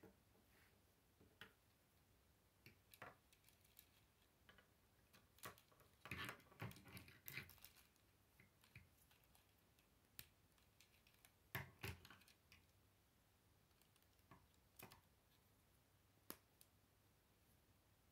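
Faint clicking and clattering of K'nex plastic rods and connectors being snapped together and handled during assembly. Scattered single clicks, with two busier spells of clatter about six and twelve seconds in.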